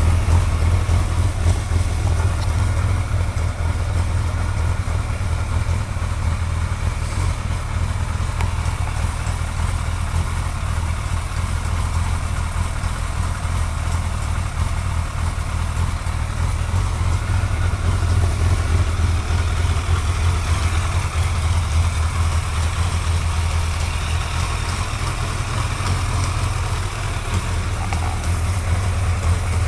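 Suzuki GSX-R1100 inline-four engine idling steadily, with the ticking noise it is being recorded for.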